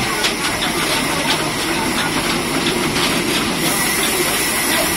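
Sawmill log band saw running: a steady, even mechanical hiss with a faint high tone held through it and scattered light ticks.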